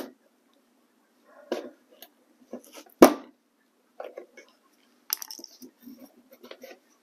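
Metal pick tool prying an old plastic fender clip out from behind the fender liner: a run of small clicks and scrapes, the loudest click about three seconds in, then a quicker patter of light ticks.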